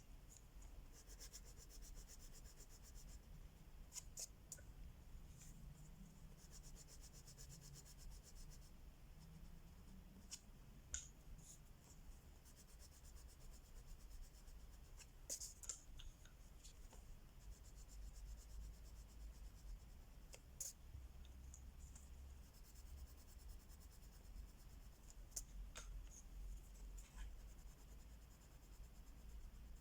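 Wax crayon scratching faintly across paper in quick back-and-forth coloring strokes, in several stretches of a few seconds each, with a few sharp small clicks in between.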